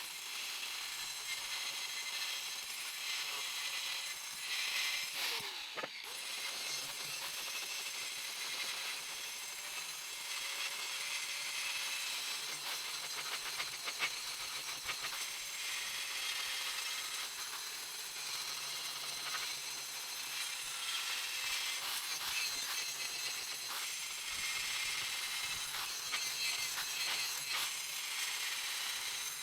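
Angle grinder with a sanding disc running against rusty steel, stripping off the surface rust. The motor holds a steady whine under a hissing grind, and it eases off and picks back up about six seconds in.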